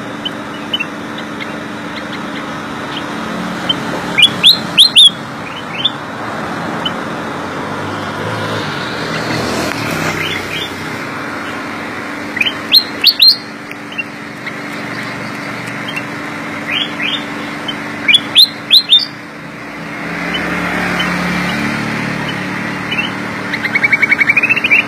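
Black-crested bulbul singing short bursts of loud, sharp rising whistled notes, three bursts several seconds apart, over a steady background hum.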